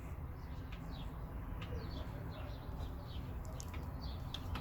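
Birds chirping in the background: many short, high, falling chirps over a steady low hum, with a few faint clicks.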